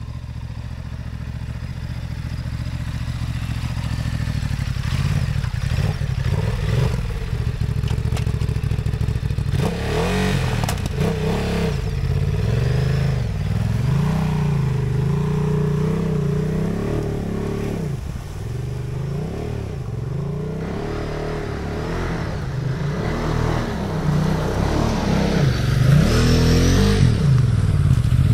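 Motorcycle engine being ridden off-road through mud. The engine note holds fairly steady at first, then from about ten seconds in rises and falls again and again as the throttle is worked, with clattering along with it. It is loudest and climbing near the end.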